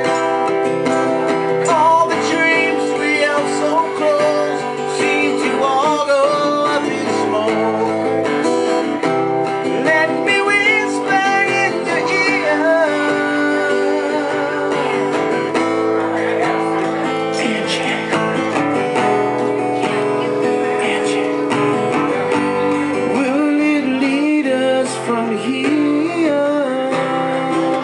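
A man singing, accompanying himself on a strummed acoustic guitar.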